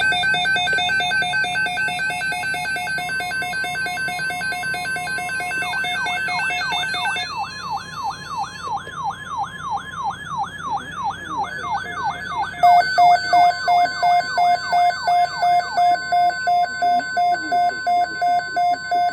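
Electronic alert tones in layers. A fast warbling high-low tone plays for the first seven seconds. A siren-like wail follows, sweeping up and down about twice a second, and a pulsing beep joins it about thirteen seconds in, with a faint steady tone underneath.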